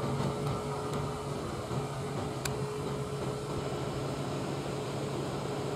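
KAI diesel-electric locomotive running light toward the listener, its engine a steady low hum, with one sharp click about two and a half seconds in.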